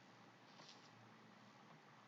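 Near silence: faint steady hiss, with one brief soft burst of high hiss about half a second in.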